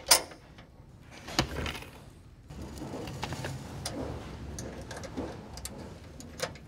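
Small metal clicks and scrapes of bolts being threaded by hand into the lower mounting brackets of a replacement truck grille. There is a sharp click just after the start and another about a second and a half in, then a steady low rustle with scattered light clicks from about two and a half seconds in.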